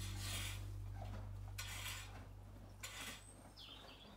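Background music fading out under three short scrapes of a long-handled mucking-out tool on the yard floor, each about a second or more apart. A brief high chirp comes near the end.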